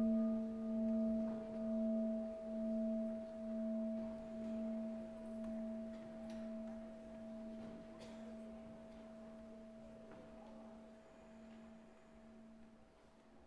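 A struck bowl bell ringing and slowly dying away. Its low tone pulses about once a second as it fades.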